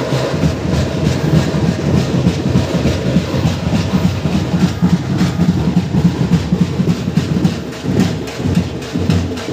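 Loud, fast procession drumming, a dense rapid beat that keeps up without a break.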